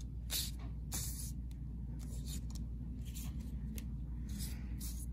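Paper paint-chip cards sliding and rustling against a tabletop as they are handled, in about six short swishes, over a steady low hum.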